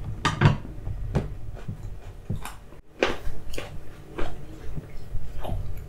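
A knife cutting a dried sausage on a wooden cutting board: irregular sharp knocks and clicks, about eight of them, over a low steady hum.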